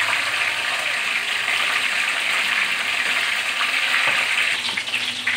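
A whole fish deep-frying in a wok of hot oil: a steady, loud sizzle of vigorously bubbling oil.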